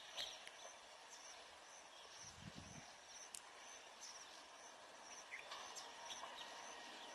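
Near silence: faint outdoor ambience with a few scattered high chirps.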